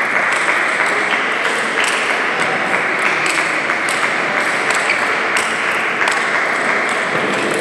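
Table tennis ball being struck and bouncing in a rally: sharp clicks about two a second, over a steady din of background noise.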